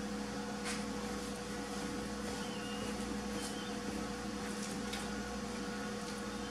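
A steady low hum with a fainter, higher steady tone, and a few faint clicks.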